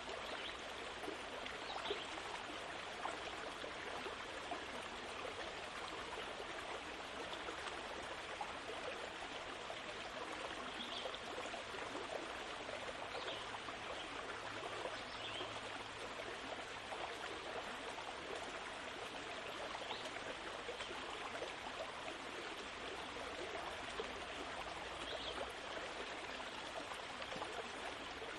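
A steady, even rushing noise like running water, with faint short high chirps every few seconds.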